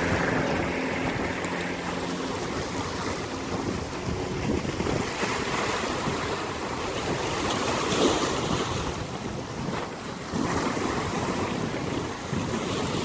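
Rough sea: waves breaking and washing in, rising and falling in slow swells, with wind buffeting the microphone. A low steady hum fades out over the first two seconds.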